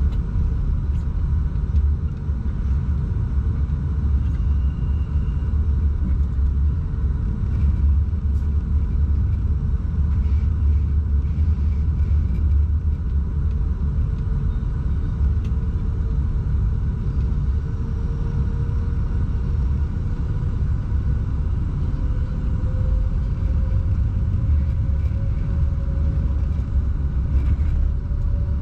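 Steady low rumble inside a locomotive cab as it hauls a freight train along the line. A faint whine runs under it and rises a little in pitch in the last third.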